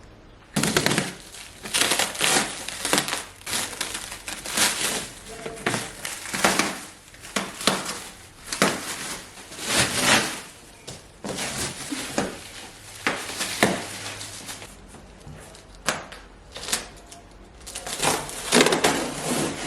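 Packaging of a flat-packed headboard being torn open and crumpled by hand, in irregular bursts of rustling and ripping, quieter for a few seconds before picking up again near the end.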